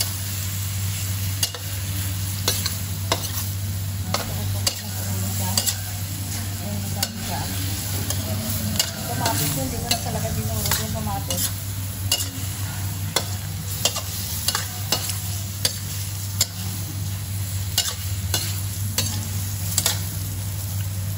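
Metal spatula stirring squid pieces in a stainless steel frying pan, with frequent clicks and scrapes of metal on the pan over a steady sizzle of frying. A steady low hum sits underneath.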